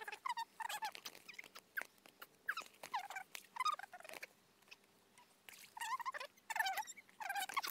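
A rapid run of short, high-pitched chirping and squeaking calls from a small animal, overlapping one another, with a few soft clicks among them.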